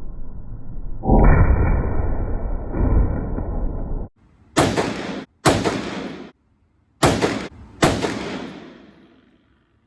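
A loud rushing noise for about three seconds, then four sharp rifle shots in two pairs, each with a ringing tail. The shots come about a second apart within a pair, with the sound cutting out abruptly between them; the last one fades away.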